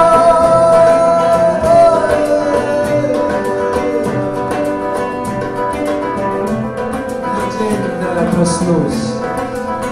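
A man singing a long held note over his own fingerpicked classical guitar. The held note fades about two seconds in, and the guitar carries on with quick plucked notes while his voice slides between pitches.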